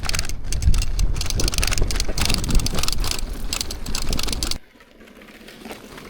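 Rough, steady rumble of wind on the microphone with fast rattling and clicking, as when moving quickly over rough ground on a mountain bike. It cuts off suddenly about four and a half seconds in to a much quieter hiss.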